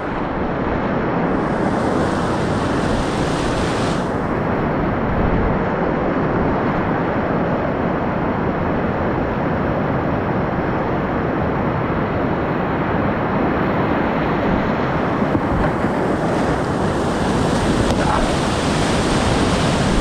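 Steady rush of whitewater: a mountain river running through rapids, its treble brightening briefly about two seconds in and again near the end.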